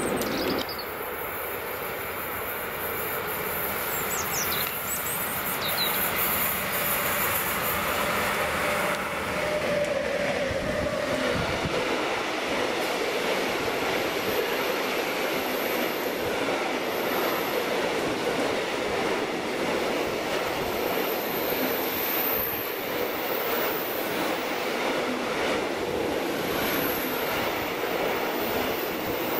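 A long freight train of loaded hopper wagons rolling past close by, a steady rolling rumble of wheels on rail, with faint high wheel squeal at times on the curve.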